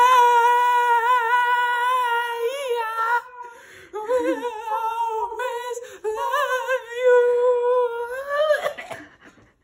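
A high-pitched human voice humming or singing long held notes that waver in pitch. It comes in two phrases split by a short break about three seconds in, and the last note slides upward before it cuts off.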